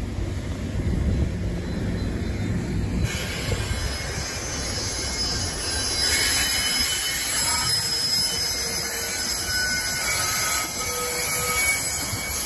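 NJ Transit passenger coaches rolling through a curve, steel wheels rumbling on the rails, with thin high wheel squeal coming in about halfway through.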